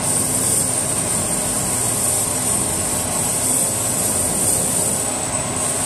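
Bosch brake lathe running with a brake rotor spinning on its arbor: a steady motor hum under a constant high hiss. The cutting bits are set at the rotor's surface while the depth for a full concentric cut is being found.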